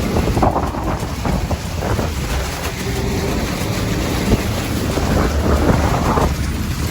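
Wind buffeting the microphone over the low rumble of a moving vehicle.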